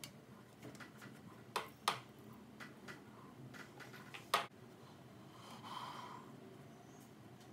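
Light clicks and taps of hands and a dumpling wrapper against a metal pan as a dumpling is filled and pleated: three sharper clicks in the first half, the loudest just after four seconds in, then a soft brief rustle.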